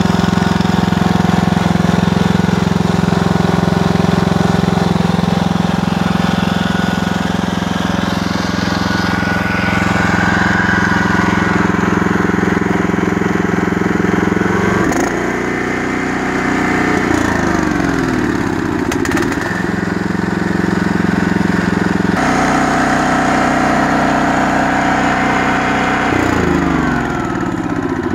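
Kawasaki FB460V single-cylinder engine on a Scag 36-inch walk-behind mower, running steadily. In the second half its speed is brought down and back up twice, the pitch falling and rising each time.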